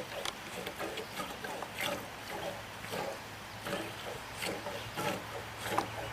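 A goat being milked by hand: short hissing squirts of milk into a container, coming irregularly about once or twice a second.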